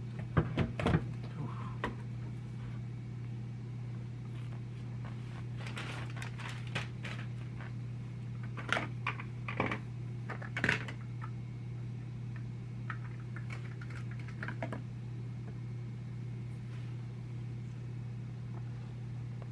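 Scattered light clicks and knocks of plastic drain-pipe parts and tools being handled, in clusters, over a steady low hum.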